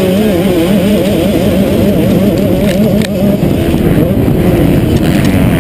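Motocross bike engine running hard under the rider, heard close up, its pitch rising and falling rapidly as the throttle is worked.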